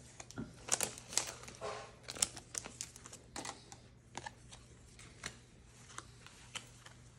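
Pokémon trading cards being pulled from a freshly opened foil booster pack and handled, giving scattered light clicks and snaps of card stock and foil, busiest in the first few seconds and then sparse.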